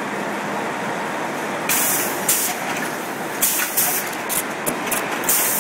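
Fully automatic double-head tying machine for bundles of corrugated boxes cycling: a string of short, sharp air hisses from its pneumatic cylinders begins about two seconds in, over a steady background of machinery noise.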